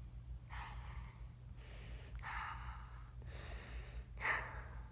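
A person breathing audibly, a few soft exhales through the nose one after another, over a steady low hum.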